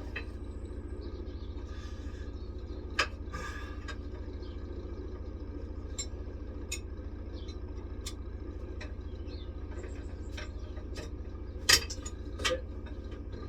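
Metal clinks and knocks of a Tyron run-flat band's steel segments being worked back into a caravan wheel rim, a dozen or so scattered sharp clicks with the loudest near the end, over a steady low hum.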